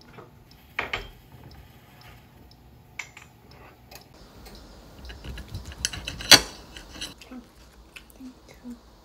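Kitchen clatter: scattered clicks and knocks of dishes and utensils, busiest in the second half, with one sharp loud clack a little past six seconds in.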